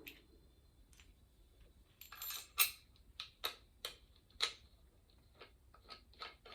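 Metal parts of an exercise bike's seat riser assembly clicking and clinking as they are handled and slid together: a string of sharp, bright clicks at uneven spacing, starting about two seconds in and coming quicker near the end.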